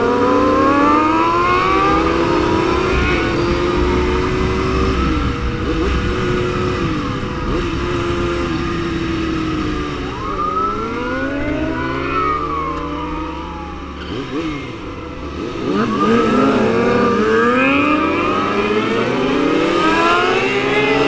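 Several sport-bike engines revving hard and shifting through gears, their pitch sweeping up and down. The sound eases off for a couple of seconds about two-thirds of the way through, then the revving picks up again.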